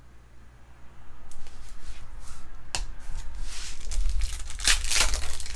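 Trading-card pack wrapper being torn open and crinkled in the hands: scattered rustles, a sharp click about three seconds in, then denser crackling near the end.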